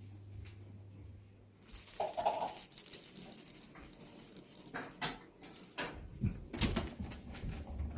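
Maine Coon cat moving about on a cat tree with a felt ball: a short mid-pitched sound about two seconds in, then a few sharp light knocks and taps from paws and the tower.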